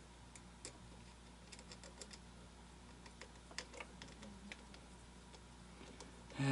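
Faint, irregular small clicks and taps of plastic and metal parts being handled, likely the screw and motor being fitted into the animatronic's head. A brief voice sound right at the end.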